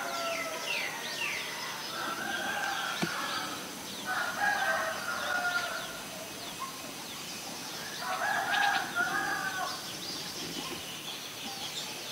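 A rooster crowing three times, with small birds chirping in short high notes in between.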